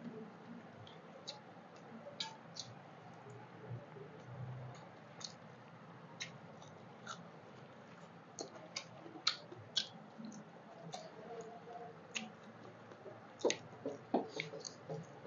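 Two people eating rice and curry by hand: chewing and wet mouth clicks, heard as scattered short sharp clicks that come thicker near the end, along with fingers working rice on metal plates.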